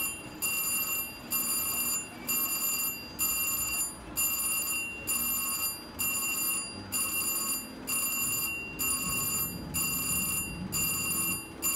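Casino slot machine's electronic bell ringing in a steady, quick repeating pattern of high chiming tones.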